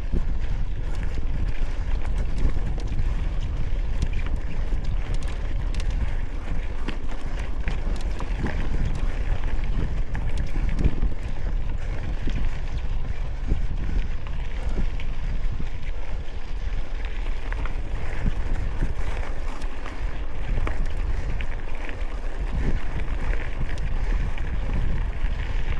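Wind buffeting the microphone, a steady rumble with scattered small knocks and rattles, as from a camera carried while moving.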